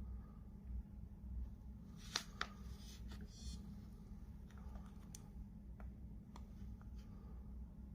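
Faint handling sounds over a steady low hum: two sharp clicks about two seconds in, a short rustle right after, then a few scattered light clicks.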